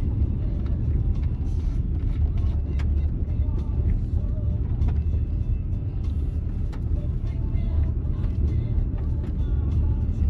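Steady low rumble of a car driving, the engine and tyre noise heard inside the cabin, with a few faint clicks over it.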